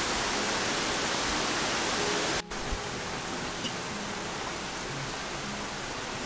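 Steady rain falling, a dense even hiss. It drops out for a moment about two and a half seconds in, then carries on a little quieter.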